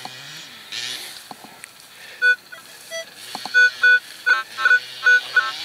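Minelab CTX 3030 metal detector giving short, repeated two-tone beeps as its coil sweeps back and forth over a buried target: a mid-tone signal. The beeps start about two seconds in and come about three times a second near the end.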